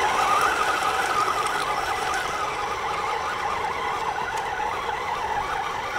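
Modded 4x4 RC truck's two electric motors and drivetrain whining steadily, the pitch wavering up and down.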